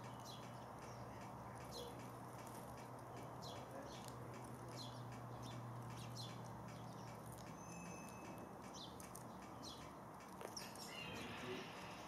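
House sparrows chirping at a garden feeder: a run of short, falling chirps, roughly one a second, over a faint steady low hum that stops about halfway through.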